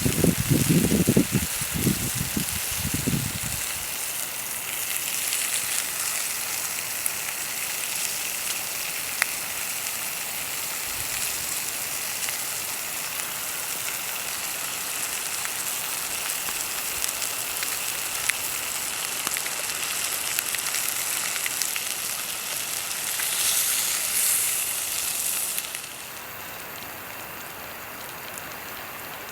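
Food sizzling and frying in a skillet over a campfire, a steady hiss with small crackles that swells briefly about 24 seconds in. Near the end it cuts suddenly to a quieter, even hiss.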